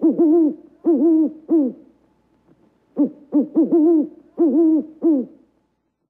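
An owl hooting: two quick runs of short hoots, each hoot rising and falling slightly in pitch, the second run starting about three seconds in.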